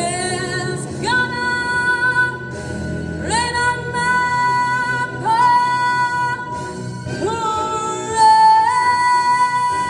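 A woman belting long, high held notes over instrumental accompaniment. Each note scoops up into pitch, and the last one steps higher near the end.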